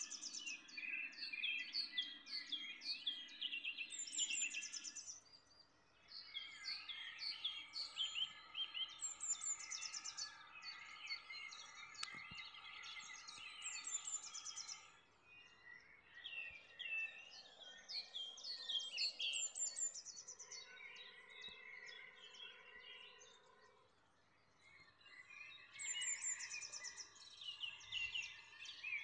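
Several songbirds singing, with overlapping phrases of high chirps and trills and a few brief lulls.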